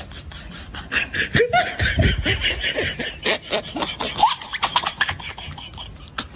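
Hearty laughter in rapid breathy bursts with short rising squeals, running on until it cuts off at the end.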